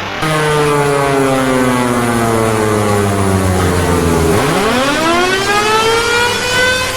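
Soviet S-40 electromechanical air-raid siren wailing loudly. Its tone slowly winds down for about four seconds, then sweeps sharply back up and holds high near the end.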